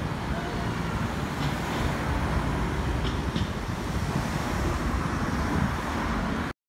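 Steady rumble of road and wind noise from a moving car, cutting off abruptly near the end.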